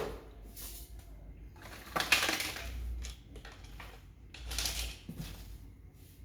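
Packaging being handled during unboxing: rustling and scraping in a few short noisy bursts, the loudest about two seconds in and another about four and a half seconds in.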